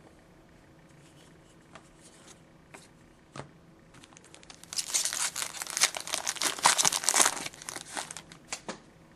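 A foil trading-card pack wrapper being torn open and crinkled: a dense burst of crackling about five seconds in that lasts two to three seconds and trails off in a few last crinkles, after a few faint clicks.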